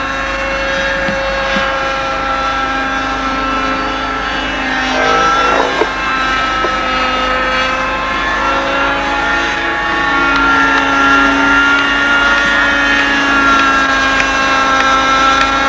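Engine of a radio-controlled Écureuil scale model helicopter running steadily in flight: a continuous high-pitched drone that drifts slightly up and down in pitch as the model manoeuvres.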